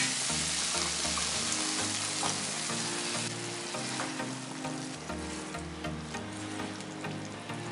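Warm water poured into a hot wok of spiced moth beans sizzles loudly, the sizzle easing about three seconds in and running on more quietly as a spatula stirs the beans through the water.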